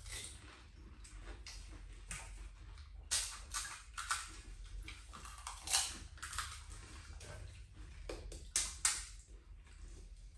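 Crisp golgappa (pani puri) shells cracking and crunching as they are poked open and bitten, in irregular sharp crackles, a few of them louder.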